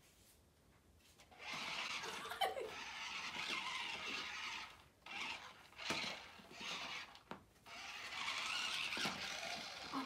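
Sharper Image remote-control stunt car's small electric drive motors whining as it drives and spins on carpet, in a long run of a few seconds and then several shorter bursts with brief stops between.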